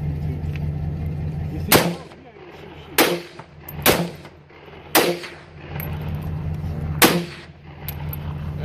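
Five rifle shots fired at irregular intervals over about five seconds, each a sharp crack with a short echo. All five are of similar size, with no larger blast among them.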